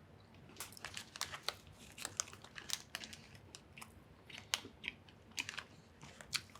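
Close-up chewing of a caramel bar, a thick bread topped with caramel and nuts: irregular small crunchy clicks and wet mouth sounds from about half a second in.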